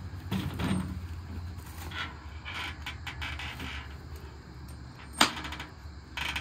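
Large circular sawmill blade being handled in a wooden crate: scattered creaks and scrapes of wood and metal, with one sharp knock about five seconds in.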